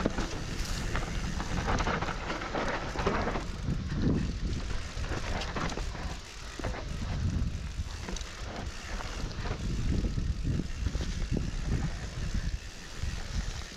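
Mountain bike rolling down a dirt singletrack: tyre noise on dirt with the chain and frame rattling and knocking over bumps in quick, uneven succession.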